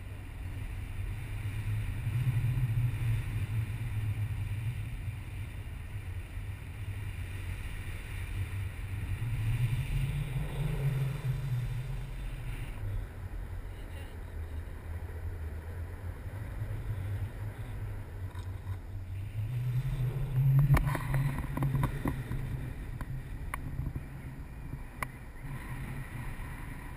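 Wind rushing over the microphone of a pole-mounted action camera in paraglider flight: a low rumble that swells and fades three times, with a few light knocks about two-thirds of the way in.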